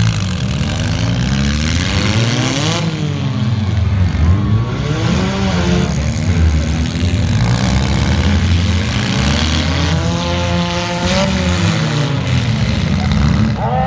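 Several demolition derby cars' engines revving together, their pitches rising and falling and overlapping as the cars drive and ram each other.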